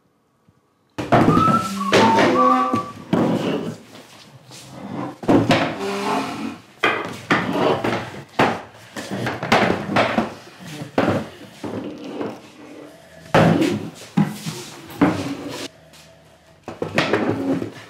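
Wooden chairs being taken down off a table and set on a hard floor: a quick run of wooden knocks and thuds, starting about a second in.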